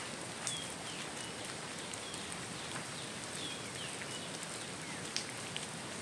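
Outdoor monsoon hillside ambience: a steady even hiss, with short high chirps of a small bird, each falling slightly in pitch, repeating every second or so.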